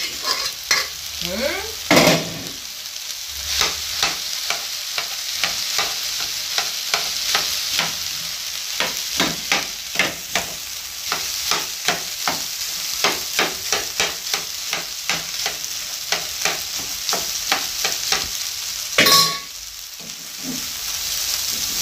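Cooked rice sizzling in a hot frying pan on top of fried vegetables, while a spatula and spoon tap and scrape against the pan a couple of times a second as the rice is spread. Two louder knocks stand out, one about two seconds in and one near the end.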